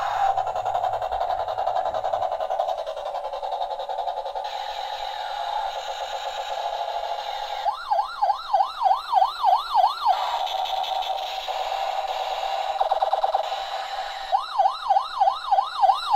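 Battery-operated toy police helicopter playing its electronic sound effects through a small speaker: a steady tone, twice giving way to a fast warbling siren of about four wails a second, the second one starting near the end.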